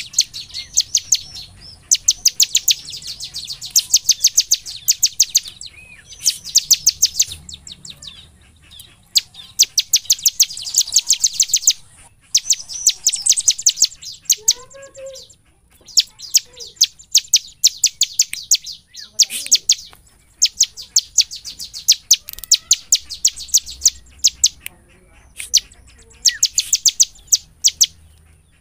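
Bar-winged prinia (ciblek) singing loudly: fast runs of sharp, high repeated notes in bouts of one to two seconds, with short pauses between them.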